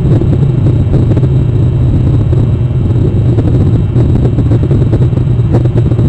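A steady, loud low rumble with a noisy hiss over it, and no bird call standing out.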